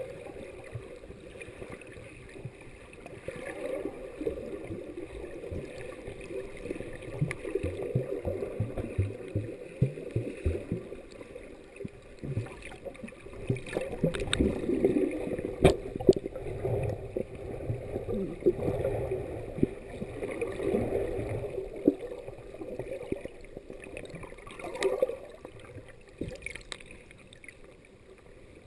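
Muffled sloshing and gurgling of water heard through a camera held underwater while a person swims, with a few sharp knocks now and then.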